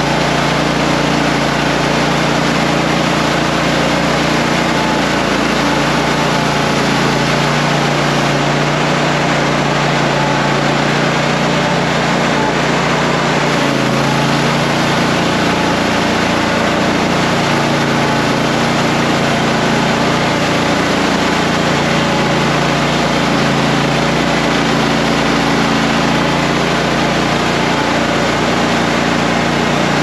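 Toro Multi Force's engine running steadily while its front power broom sweeps icy snow off pavement, mixed into a dense steady whir.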